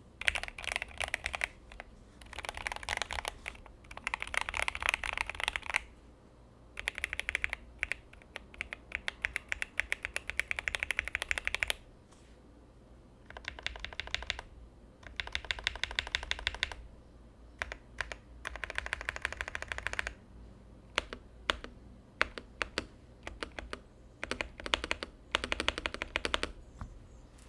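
Typing on a Gamakay LK67 mechanical keyboard with lubed Akko Jelly Black linear switches and an acrylic plate. Fast runs of keystrokes come in bursts of a few seconds, separated by short pauses. The last third has slower, scattered single keystrokes.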